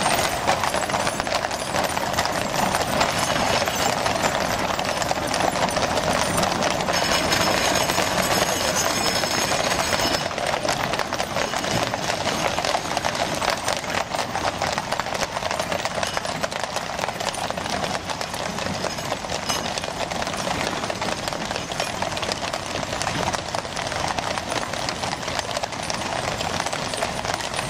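Hooves of many horses clip-clopping on a paved road in a continuous, overlapping clatter: a mounted column with teams drawing field-gun carriages, passing at a walk.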